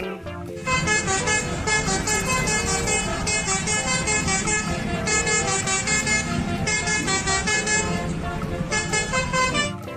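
Truck horns on large mobile crane trucks sounding in a few long blasts with short breaks, over the low rumble of the trucks' engines.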